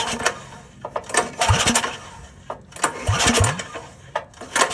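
Predator 212 single-cylinder engine cranked by hand with its recoil starter, several quick pulls that each spin it up briefly without it running. The engine is being turned over while its valve lash is set.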